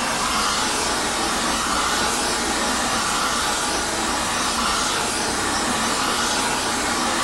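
Oxy-fuel torch flame burning with a steady hiss. It is heating an aluminium Shovelhead cylinder head toward about 500 degrees so that the nickel-alloy valve seats can be shrunk in.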